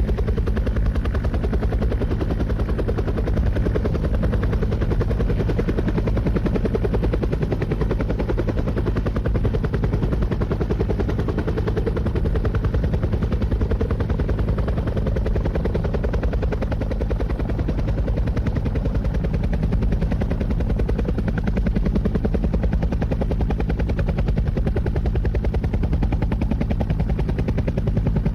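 Helicopter running steadily, its rotor blades beating in a fast, even chop over a deep low rumble.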